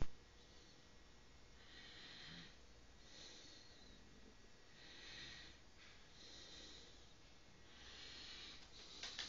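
Soft, slow breathing close to the microphone, a breath about every one and a half seconds, in and out in turn. A single sharp click right at the start.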